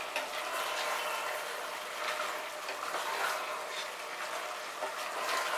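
Marinated mutton with fried onions and tomato sizzling and bubbling in oil in an open pressure cooker pot, a steady hiss, while a spatula stirs it with faint scraping strokes; the meat is being cooked down (kosha) in its own juices.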